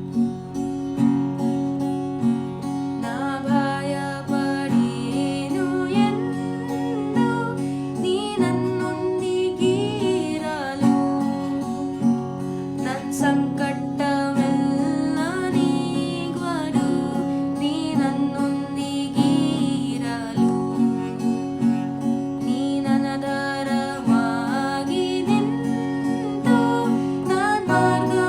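Acoustic guitar strumming steady chords, with a woman singing a Kannada worship song over it from about three seconds in.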